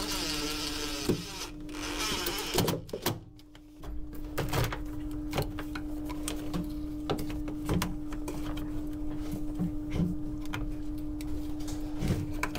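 A DeWalt 18V cordless drill runs in two short spells in the first three seconds, driving screws to fix a new bilge pump's base to the hull. After that come small plastic clicks and rattles from the pump and its wires being handled, over a steady low hum.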